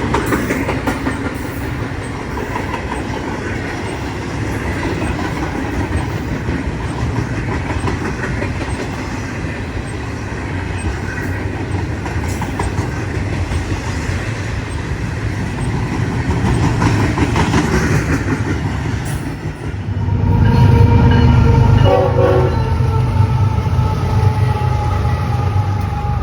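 A train passing, its wheels clattering over the rail joints. About two-thirds of the way through, a deeper locomotive rumble swells up, and a multi-tone horn sounds, falling slightly in pitch as it goes by.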